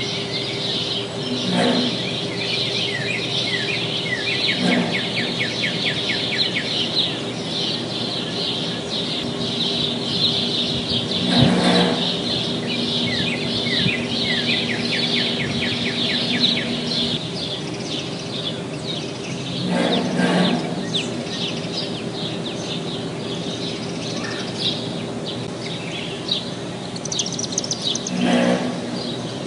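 Refrigerated containers give five short, loud impulsive bursts at irregular intervals of three to nine seconds. A steady hum runs underneath, and songbirds sing densely in a dawn chorus.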